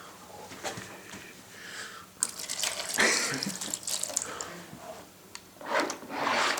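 Milk being poured out onto a PS3 controller, a splashing pour in two spells of a second or two each.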